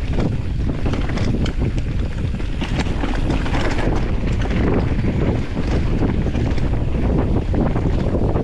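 Mountain bike descending a dirt trail at speed: wind buffeting the camera microphone, tyre noise on the ground and a steady stream of rattles and clicks from the bike.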